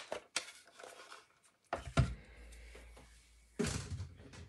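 Hand-cranked die-cutting machine pressing a die through thick cardstock: a few light clicks, then a thump about two seconds in and a low, steady rumble for about two seconds as the plates are cranked through, ending in a short scraping rustle.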